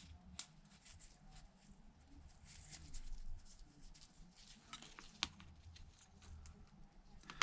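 Faint, scattered clicks and taps of small metal tools, such as tweezers, handling tiny phone parts, with one sharper click about five seconds in.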